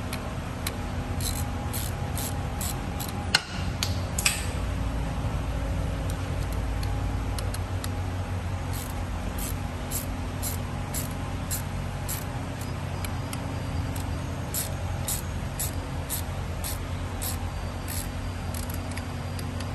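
Hand ratchet clicking in a steady run of sharp ticks, about two to three a second, as the bolt of a crankshaft trigger wheel installer is turned, over a steady low hum. Two louder metal knocks come about three and a half and four seconds in.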